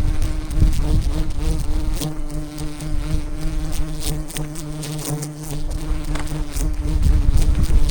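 Swarm of wild honey bees buzzing around their hive in a steady drone. Low rumbles come through about half a second in and again near the end.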